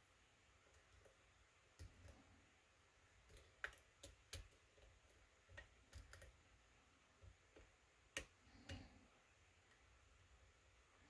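Faint, irregular clicks and ticks of a lock pick working the pin stack inside a kick-cylinder lock, a few louder clicks among them.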